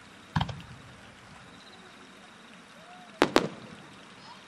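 Fireworks going off at a display: a single sharp bang about half a second in, then two bangs in quick succession about three seconds in.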